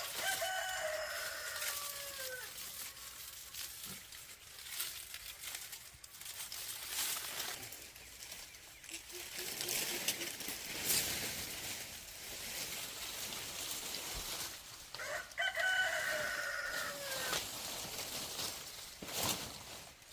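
A rooster crowing twice, once at the start and again about fifteen seconds later, each crow a call of about two seconds that slides down in pitch at its end. Scattered clicks and rustling fill the gap between the crows.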